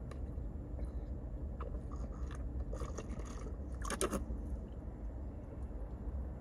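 Close-up chewing and biting of food, with scattered short crunches and clicks, the loudest cluster about four seconds in, over a steady low hum.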